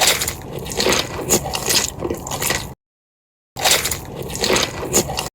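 Close-up eating sounds: food being bitten and chewed with wet, crunchy crackles and sharp little peaks. The sound breaks off abruptly for under a second about two and three-quarter seconds in, then resumes.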